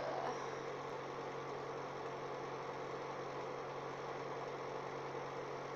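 Steady background hum with hiss, an unchanging room tone with no distinct events.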